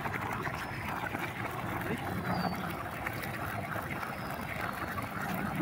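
Fountain water falling in a thin stream and splashing steadily into a pond, with faint distant voices and a few short, high, faint whistles.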